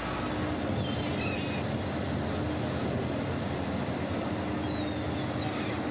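Steady rumble of a boat's engine and rushing water at sea, with a few faint, short gull calls above it.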